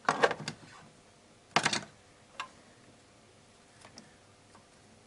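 Fuel injectors on their rail knocking and clicking against the intake manifold as they are guided into their ports. There are two short clusters of clatter, at the start and about a second and a half in, then a few faint ticks.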